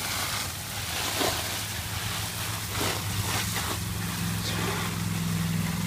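Steady hiss of a garden hose spraying in the rain, with a few brief crackles or splashes and a steady low hum underneath; a second, slightly higher hum joins about four seconds in.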